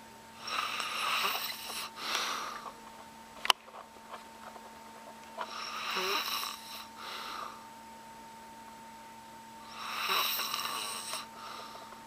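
A man snoring heavily through his open mouth in sleep: three long, breathy snores about four seconds apart. A single sharp click falls between the first two.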